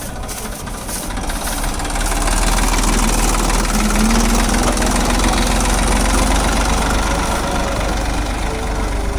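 Engine of farm harvesting machinery running steadily, growing louder about two seconds in, with a faint whine that wavers in pitch.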